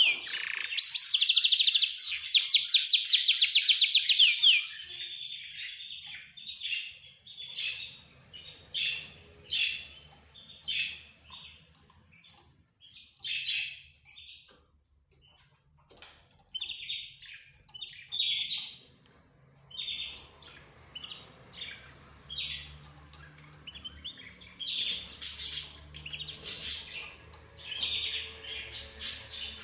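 Mixed cage birds chirping and calling: budgerigars, rosy-faced lovebirds, zebra finches and a canary. A loud, rapid trill runs for the first four seconds or so, then gives way to scattered short chirps.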